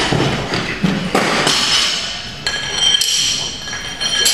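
Weights being changed on an Olympic barbell: plates and collars clank and clink against the bar's steel sleeves. The metal rings on after several of the strikes.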